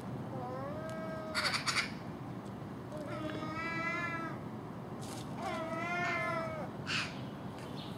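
Common gulls giving long mewing calls: three drawn-out cries, each rising and then falling, with brief harsh rattling calls from another bird between them.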